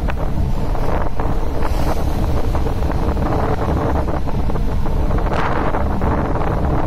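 Strong wind buffeting the microphone: a loud, continuous rumble that swells and eases with the gusts.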